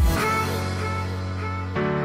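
Background music: held chords, with a change to a new chord near the end.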